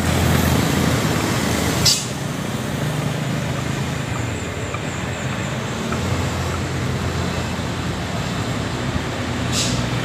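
Road traffic passing: a heavy truck's engine running as it pulls away, then passing cars. Two short hisses come about two seconds in and near the end.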